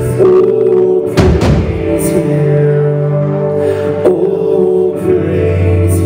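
Live worship-band music: held chords under a handful of heavy hits on large drums struck with sticks, the strongest a little over a second in.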